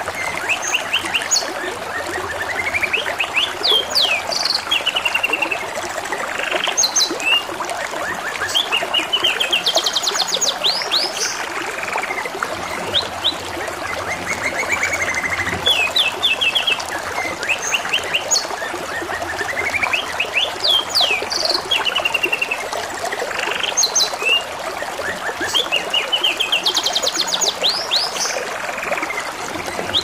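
Domestic canary singing: fast trills and chirps in short phrases that recur throughout, over a steady trickle of running water.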